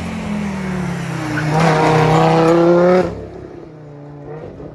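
Rally car engine accelerating hard, its pitch climbing to a loud peak, then falling away suddenly about three seconds in to a quieter engine sound.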